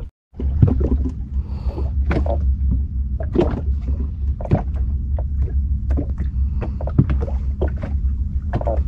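A small sampan at sea: a steady low rumble with irregular knocks and clicks from the boat and its gear.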